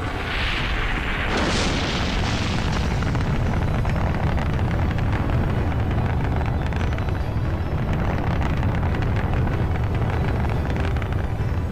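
Rocket engine lifting off: a rising rush of noise, a sudden blast about a second and a half in, then a steady low rumble.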